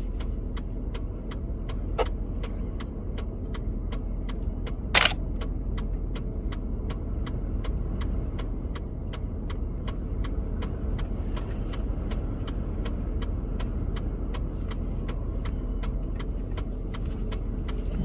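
Steady low rumble inside a car with an even, fast clicking of about two to three clicks a second, like a car's flasher relay ticking. A single sharper knock stands out about five seconds in, and a fainter one about two seconds in.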